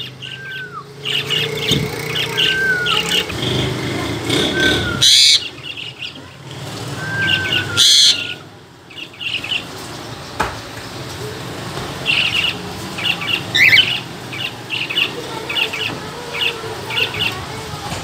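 Cockatiels chirping in quick clusters, with a few short whistles that rise and fall in pitch and two loud screeches about five and eight seconds in.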